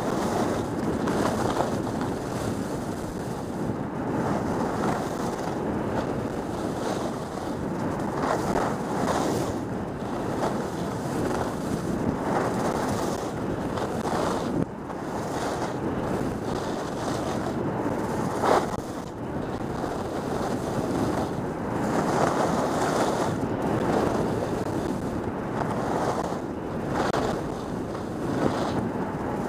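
Skiing downhill heard from a camera worn by the skier: a steady rush of wind over the microphone mixed with skis hissing and scraping on groomed snow, swelling and easing every second or two.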